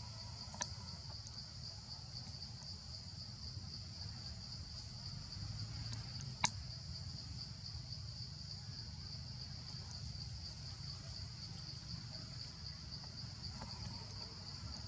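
Steady, high-pitched insect chorus, a continuous trill with a fine pulse, over a low rumble. Two sharp clicks: a faint one near the start and a louder one about halfway through.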